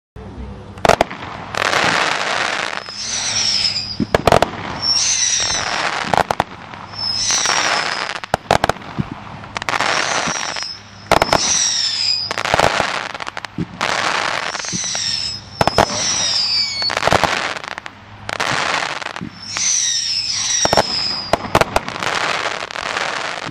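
A 500-gram World Class 'Extreme Machine' firework cake firing shot after shot, about one every two seconds. Each shot is a sharp bang with a brief high whistle, followed by a second or so of crackling as the stars break.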